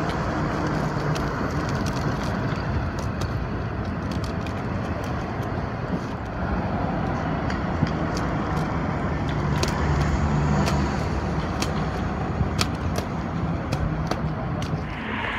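City street traffic: transit buses and cars passing, a steady mix of engine hum and tyre noise, with the low engine note swelling about nine to eleven seconds in. It is heard through a waterproof phone case.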